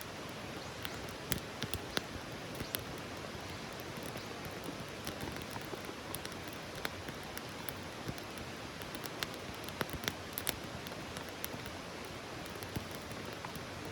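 Wood campfire burning: a steady hiss with scattered sharp crackles and pops, a cluster of them near the start and again about two-thirds of the way through.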